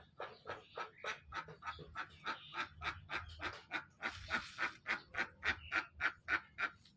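An animal calling in a fast, even run of short calls, about four a second, louder in the second half and stopping just before the end.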